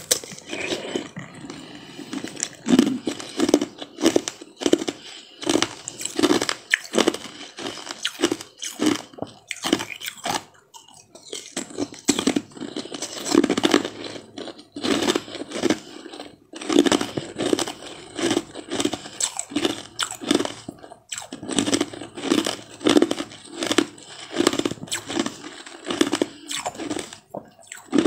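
Close-up crunching and chewing as a person bites through and eats a frozen ice treat: a steady run of crisp crunches, about one or two a second.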